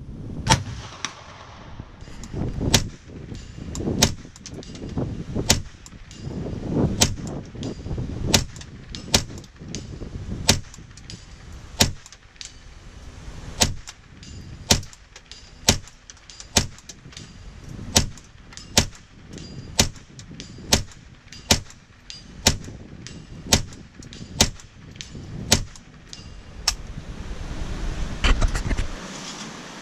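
Ruger 10/22 .22 rimfire semi-automatic rifle firing a long string of shots, sharp cracks about one every three-quarters of a second, some thirty-five in all, each with a short echo.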